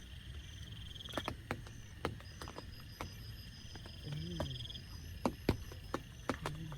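Night chorus of frogs and insects: steady high trills and evenly pulsed calls over a low rumble, with scattered sharp clicks and a short low hum a little past the middle.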